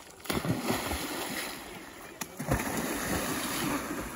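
Water splashing and churning as people run into a pond and dive in, with one heavy splash about two and a half seconds in.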